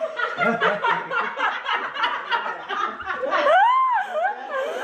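Several people laughing in quick, repeated bursts. About three and a half seconds in, a high voice gives a squeal that rises and falls.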